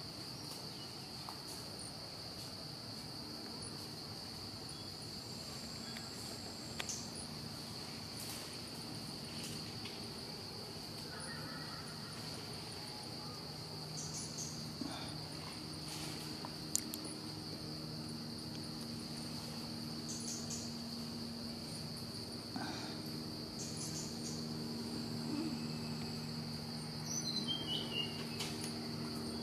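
Steady, high-pitched drone of an insect chorus, with a low faint hum joining about halfway through.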